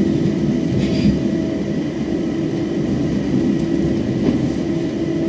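Electric commuter train heard from inside the carriage, running with a steady rumble and a faint steady hum.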